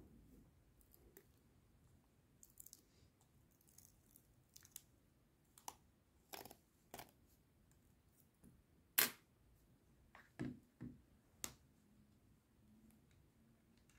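Scattered small clicks and scrapes of hand-handled plastic parts: a trunk release button, its wire and a plastic trim panel. The sharpest click comes about nine seconds in, with a few more soon after.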